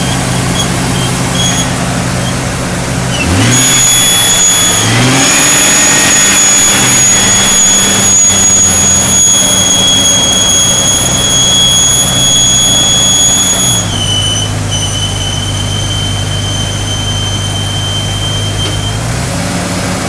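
A 2001 Jeep Cherokee's 4.0-litre inline-six is running with a loud, high-pitched, almost tea-kettle-like whistle from the engine bay; cleaning the idle air control valve has not cured it. About three seconds in the engine is revved and held up, and the whistle gets stronger. About fourteen seconds in the engine drops back to idle, and the whistle goes slightly lower before fading out near the end.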